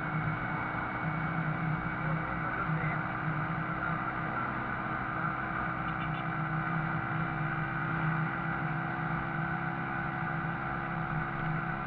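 Shineray Viúva Negra motorcycle engine running at a steady speed, its drone holding one pitch with no revving.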